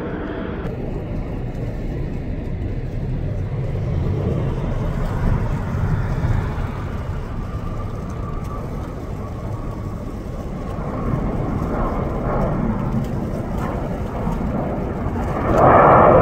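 Jet airliner on landing approach, its engines making a steady low rumble that swells louder near the end.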